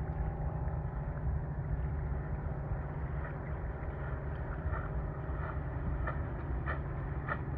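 Steady low rumble of wind on the microphone by open water. From about three seconds in it carries a run of light water splashes, roughly two a second.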